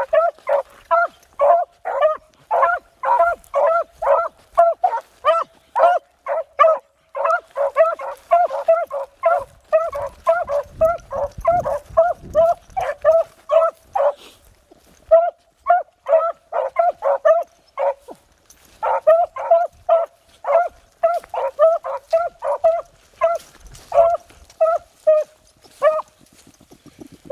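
Beagles baying in rapid, steady short barks, about three a second, with two brief breaks. This is hounds giving tongue on a rabbit's scent line as they run the track.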